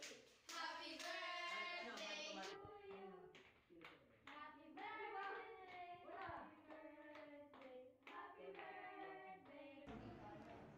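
A group of girls singing together, with hand claps in the first couple of seconds.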